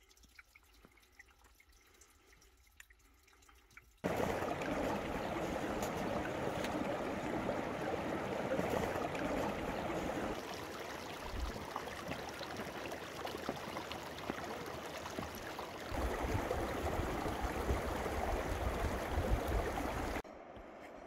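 Faint drips of meltwater from icicles at first. Then, about four seconds in, a small stream flowing fast through an opening in snow and ice, heard close up as a loud steady rush of water that cuts off shortly before the end.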